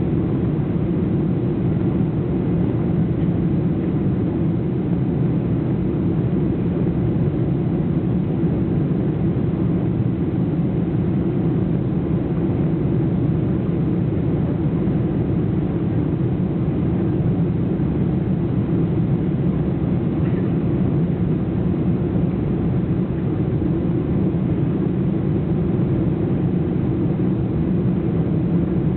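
Steady drone of an airliner's engines and rushing air, heard from inside the cabin during the landing approach, with no change in pitch or level.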